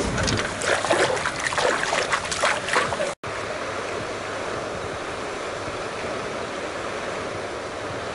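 Water splashing and dribbling in quick irregular splashes for about three seconds as a released bass kicks away from the side of a wooden dock. After a brief dropout, a steady hiss of wind and water follows.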